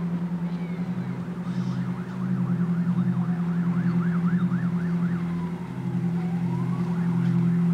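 Emergency vehicle siren: a slow wail, switching for about three seconds to a fast warbling yelp of about three cycles a second, then back to a rising wail. Underneath is a loud, low, steady throbbing hum.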